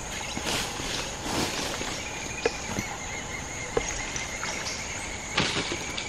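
Forest insects calling: a steady high-pitched drone throughout, joined a little over two seconds in by a steady pulsing trill. A few soft rustles and light clicks sound over it.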